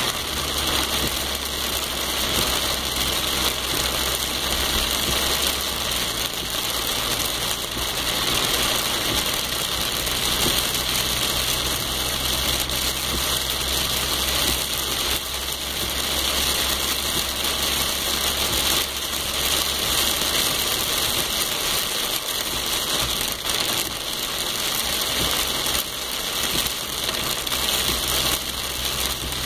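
Steady rain falling, an even dense hiss with a rattly patter, and a low steady hum underneath that fades out partway through and returns near the end.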